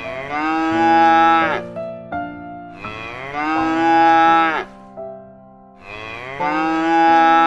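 A cow mooing three times: long, drawn-out calls that each drop in pitch as they end. Steady keyboard notes of background music run underneath.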